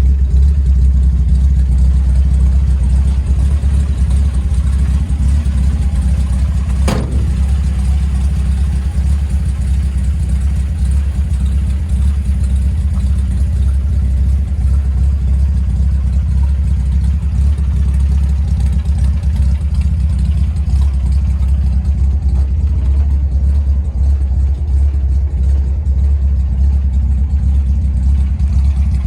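The 1953 Chevrolet 3100's straight-six runs steadily through headers and dual glass-pack side exhaust, a low, even drone. A brief sharp sound cuts across it about seven seconds in.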